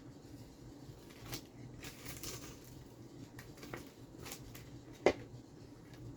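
Faint scraping and rustling of a sticky Rice Krispies mixture being handled and pressed into silicone forms, with scattered light clicks and one sharper click about five seconds in.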